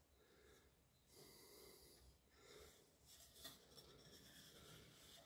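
Near silence: faint workshop room tone with a few soft, quiet noises.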